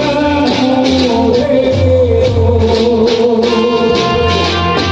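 Live Gujarati folk music played loud through a PA system: a singer's wavering voice over a pulsing bass beat and regular percussion strokes. About three and a half seconds in, held instrument tones join.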